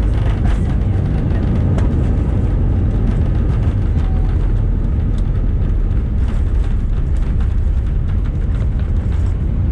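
Cabin noise inside an Airbus A319 on the runway just after touchdown: a loud, steady low rumble of the engines and the landing roll-out as the aircraft slows.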